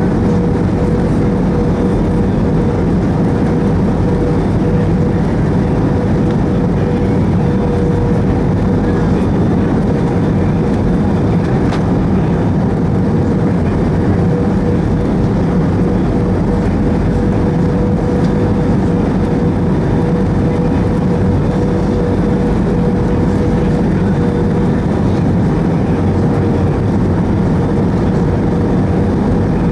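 Steady cabin noise of an Airbus A320, its engines and the rushing air heard from inside the cabin. A steady mid-pitched hum sits over the noise.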